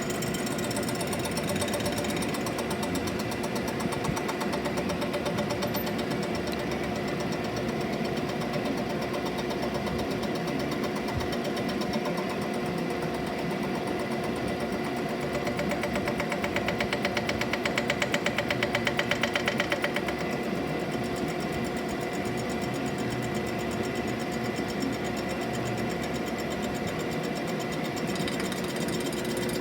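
DeVlieg machine tool cutting a cast-iron exhaust manifold: a steady machine whine with a fast, even rattle of the cutter, louder for a few seconds past the middle.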